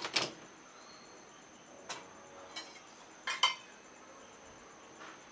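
Dishwasher rack being moved on its height adjuster: a handful of sharp clicks and rattling knocks, the loudest a quick double knock a little past three seconds in.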